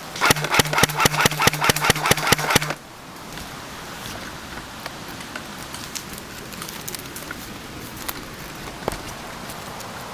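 Airsoft electric gun firing one sustained burst on full auto: a motor hum under evenly spaced shots, about five or six a second, for about two and a half seconds, then it stops abruptly. Scattered small ticks and rustles follow.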